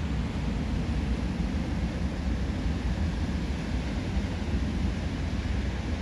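Wind buffeting the microphone in a steady low rumble, over the continuous wash of breaking surf.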